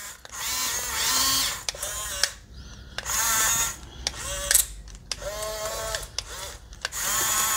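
Electric drive and gear motors of an Amewi RC bulldozer whining in short start-stop bursts that rise and fall in pitch as it moves back and forth and pushes sand with its blade, a buzz like a swarm of bumblebees.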